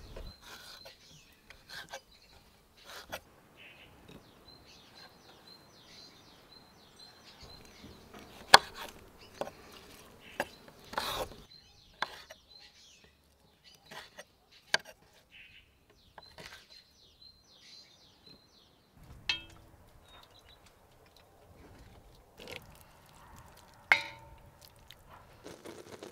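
A kitchen knife cutting soft, soaked dried fruit on a wooden cutting board, with irregular sharp knocks as the blade strikes the board. Birds chirp faintly in the background.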